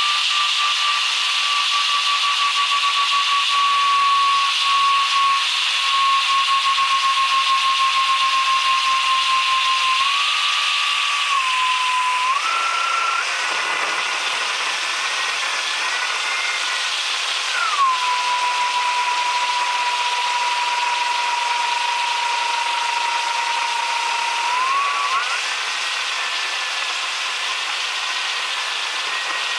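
Whine of a McDonnell Douglas MD-88's Pratt & Whitney JT8D turbofan engines over a steady rush of air. The whine drifts slowly lower, then steps up in pitch, drops back sharply and steps up again as engine power changes.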